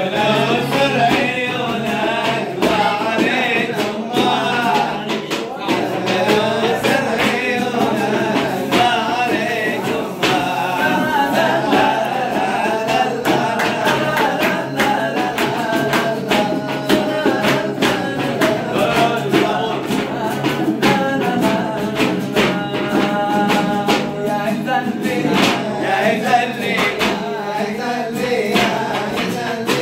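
A group of men singing a Yemenite song medley together, accompanied by strummed acoustic guitar and hand clapping.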